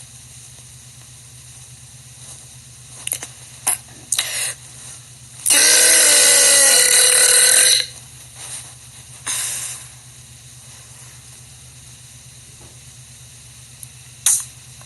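A young woman's loud, pitched burp lasting about two seconds, a little over five seconds in, preceded by a few short clicks.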